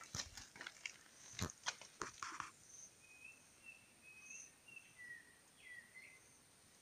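Faint bird calls in forest: a string of short whistled notes, the last few falling in pitch, after a few sharp crunches and clicks in the first couple of seconds.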